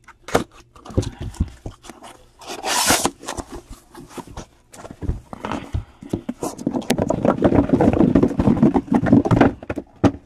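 Cardboard shipping case being cut and opened by hand: scraping and rustling of the cardboard flaps and packing tape, with a sharp tearing hiss about three seconds in. Over the last four seconds comes a long run of dense rustling and knocking.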